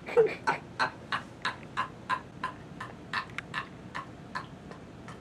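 Light ticking, about three ticks a second, growing a little fainter towards the end.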